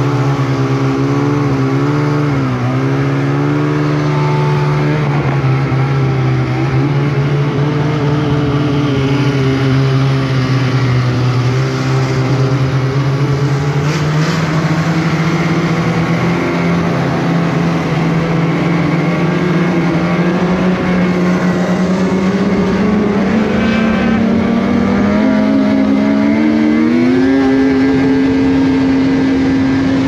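Snowmobile engine running at speed along a trail, one steady note that climbs slowly as the sled gathers speed. Near the end the pitch rises more quickly, then levels off.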